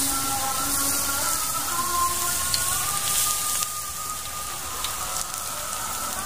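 Peyek batter deep-frying in hot oil in a wok, a steady hissing sizzle that eases slightly near the end.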